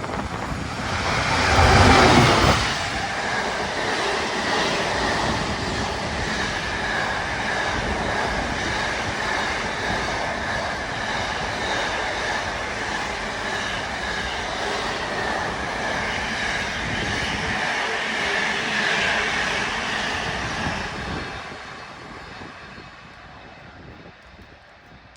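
GB Railfreight Class 66 diesel locomotive passing at speed, loudest about two seconds in with a deep engine rumble, followed by a long container freight train running past with a steady high-pitched wheel squeal. The noise fades away over the last few seconds as the end of the train goes by.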